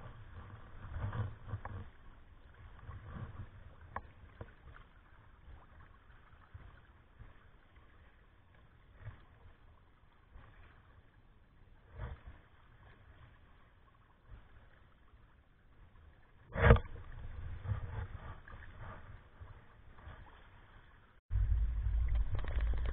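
Water sloshing and splashing against a sailing kayak's hull and outriggers, with short sharp slaps of waves and one loud splash about 17 s in. Near the end a louder, steady low rumble starts suddenly.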